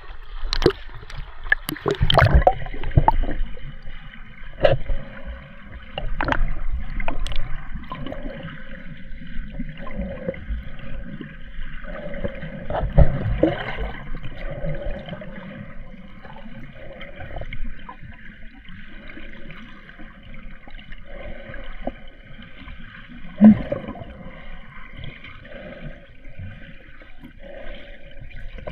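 Muffled water sloshing and gurgling around the camera as a swimmer moves through shallow sea while snorkelling, with scattered knocks and bumps, the loudest a few seconds in and one about 23 seconds in.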